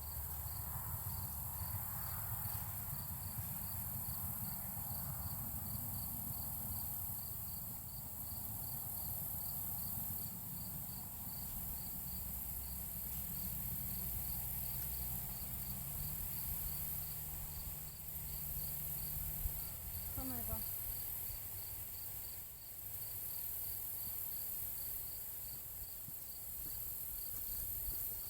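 Insects chirping in a steady, even rhythm of about two chirps a second, over a low rumble.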